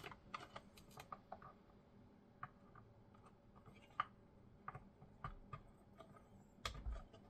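Faint, irregular clicks and taps of small plastic and metal console parts being handled and fitted while an Xbox Series X is reassembled with a new power supply, with a sharper click about four seconds in and soft thumps near the end.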